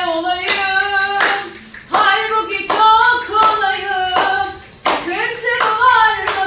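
A song: a voice singing long, wavering, ornamented notes over a sharp beat of about two strokes a second.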